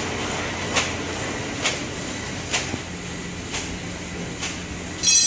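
Paper boat tray forming machine running: a steady mechanical noise with a sharp clack a little under once a second as it cycles, and a short, loud high-pitched squeal near the end.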